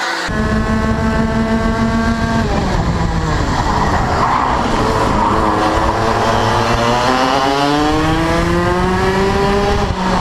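Racing kart engine heard from on board the kart, holding high revs, then falling off about two and a half seconds in. The revs climb steadily again over the last four seconds as the kart accelerates out of the corner.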